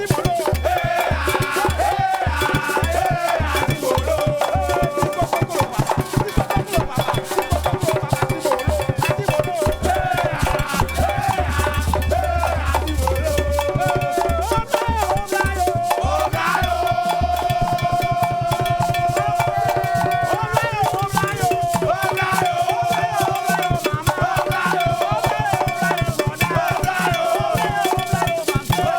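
Lively band music from a live group: a pulsing bass drum beat and a rattling shaker under a wavering lead melody. Partway through, the melody holds one long note while the bass beat drops out for a few seconds.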